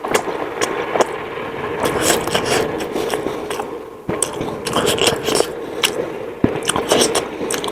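Close-miked eating sounds: chewing momos (dumplings) with frequent wet mouth clicks and lip smacks at an irregular pace.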